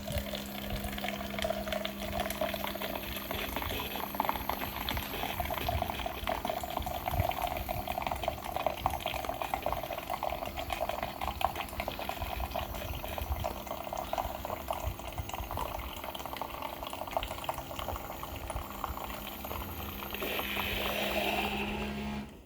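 Single-serve coffee brewer built into a Primo water dispenser, brewing a cup: a steady hum under gurgling, sputtering hot water. It grows to a louder hiss near the end, then stops suddenly as the brew finishes.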